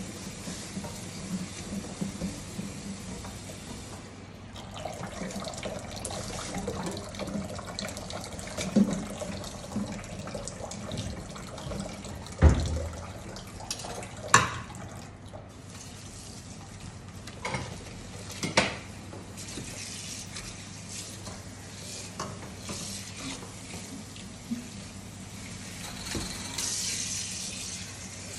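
Kitchen tap running into a sink as dishes are washed by hand, with several sharp knocks of dishware against the sink, the loudest about halfway through.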